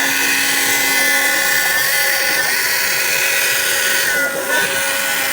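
CNC router spindle running steadily while cutting plastic, a high whine with a hiss of cutting noise above it; the whine's pitch dips slightly a few times.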